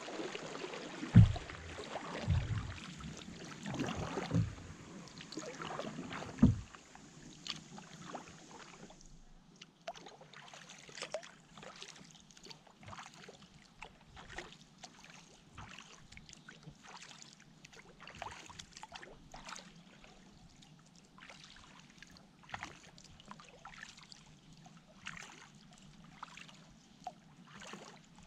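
Kayak paddling on a calm river: a paddle dipping and dripping, with short splashes every second or so over faint background hiss. In the first several seconds there are a few heavy low thumps, the loudest about a second in.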